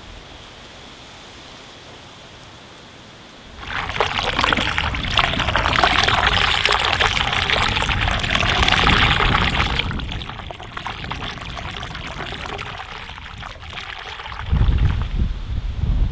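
Floodwater draining down through a whirlpool, pouring and rushing loudly. It comes in about three and a half seconds in and eases off after about ten seconds. Low buffeting of wind on the microphone follows near the end.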